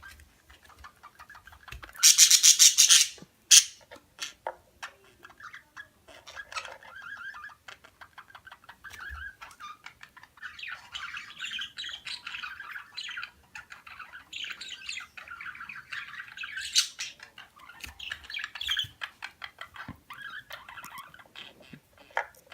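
Pet parakeets chirping and chattering, with a loud harsh squawk about two seconds in that lasts about a second.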